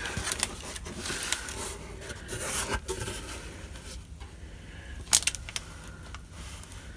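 Cardboard shipping box being opened by hand, its lid and flaps scraping and rustling as they are folded back. A single sharp tap about five seconds in.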